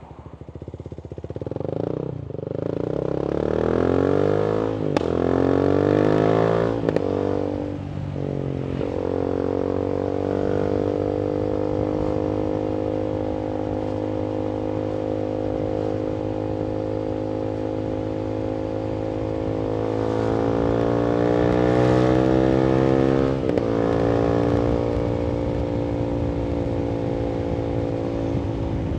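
Voge 300AC single-cylinder motorcycle engine, reflashed for more fuel with a modified airbox and a free-flowing full-system exhaust, pulling up through the gears: the pitch climbs and drops back at each of several shifts in the first nine seconds. It then cruises at a steady pitch, builds again around twenty seconds in and drops sharply a few seconds later as the throttle eases or a gear changes.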